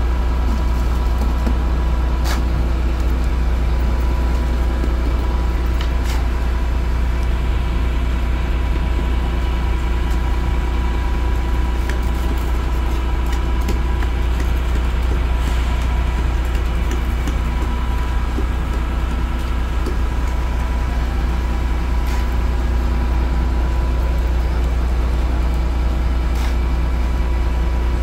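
An engine idling steadily, a constant low drone, with a few short clicks.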